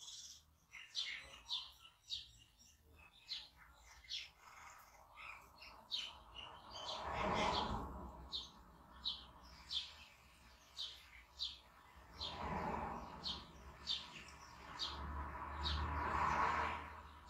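A small bird chirping over and over, short high chirps roughly twice a second. Three longer swells of rushing noise rise and fade under it, around the middle and twice near the end.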